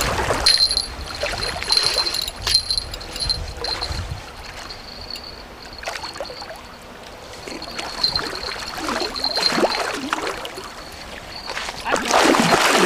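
River water lapping and gurgling against a boat, with a thin high steady tone coming and going over it and a louder rush of water near the end.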